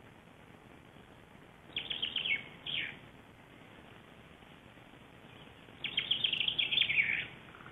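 A wild songbird singing twice: two short phrases of quick, high notes, each ending in a falling note.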